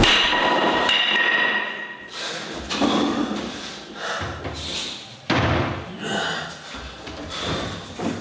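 A series of dull thumps and knocks at uneven intervals, with a sharper thump about five seconds in, after a few high ringing tones fade in the first two seconds.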